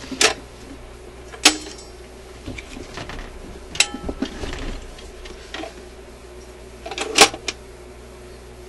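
Hands working on a suitcase record player's tone arm and mechanism: four sharp clicks and knocks spread over several seconds, two of them with a short metallic ring, with quieter handling noise between them.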